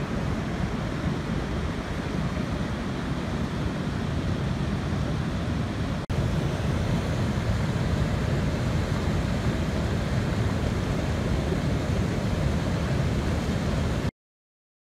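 Muddy stormwater runoff rushing through a flooded desert wash and pouring over a road crossing: a steady, heavy rushing of water. It gets slightly louder after a brief break about six seconds in and stops abruptly near the end.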